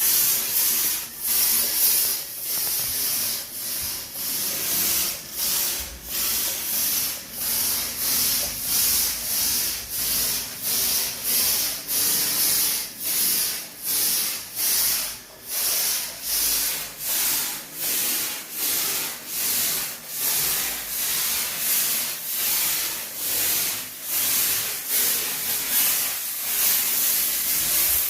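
Disinfectant sprayer hissing out mist in short regular pulses, about one and a half a second.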